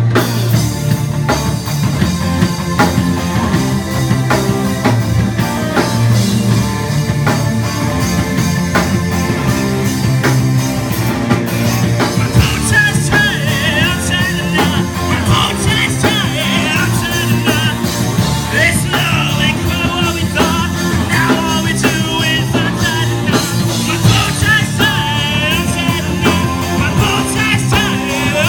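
Live alternative rock band playing loudly: drum kit, bass guitar, electric lead guitar and keyboards, with a voice singing in the second half.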